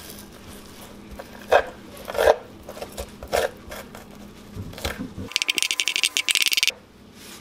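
Metal spoon scraping raw surf perch flesh off the skin on a wooden cutting board. A few separate scrapes come first, then a run of rapid scraping strokes lasting about a second and a half near the end.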